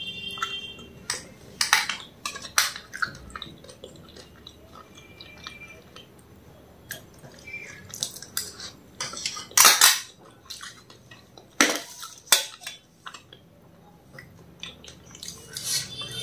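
Metal spoon clinking and scraping against a steel tray while food is scooped up and eaten: scattered separate clinks, the loudest a little under ten seconds in.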